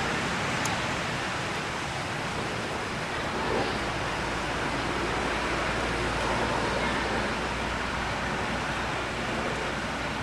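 A steady rushing noise with no distinct events, and one faint brief tick about half a second in.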